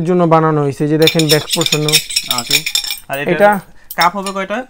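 A key's tip scraped rapidly back and forth across a glazed ceramic plate for about two seconds, a fine, high scratching rattle: a scratch test of whether the marble-pattern glaze comes off. A man's voice talks before and after it.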